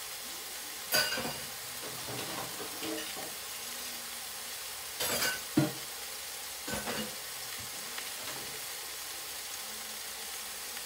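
Ground beef sizzling steadily as it browns in a pot, with a few sharp clanks of metal kitchenware, the loudest about five and a half seconds in.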